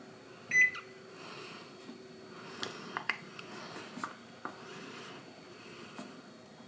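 Microwave oven control panel giving one short electronic beep as a power-setting button is pressed, followed by a series of sharp clicks as the timer dial is turned to raise the cooking time.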